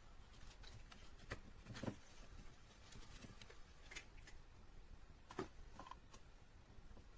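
Near silence with scattered faint clicks and taps, a few light knocks in all; the two clearest are about two seconds in and about five and a half seconds in.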